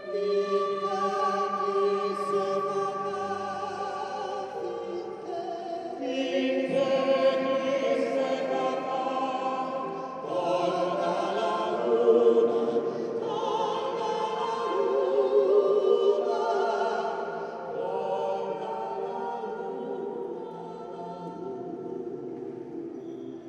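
A large mixed choir singing a slow, solemn hymn in held chords, with vibrato on the sustained notes, in a reverberant church. Two women sing lead into microphones over the choir, and the sound swells louder in the middle.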